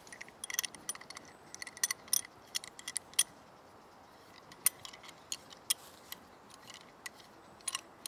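Large steel C-clamp being wound open, giving irregular sharp metallic clicks and clinks, a quick flurry in the first three seconds and sparser ones after.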